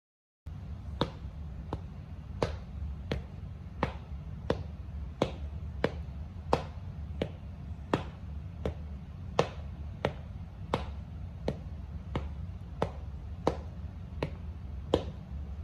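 Sharp taps repeating at an even pace, about three every two seconds, over a steady low rumble. The sound starts abruptly about half a second in.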